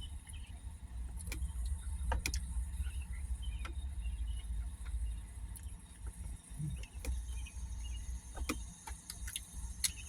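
Low breeze rumbling on the microphone through open car windows, with crickets chirping steadily and a few small scattered clicks.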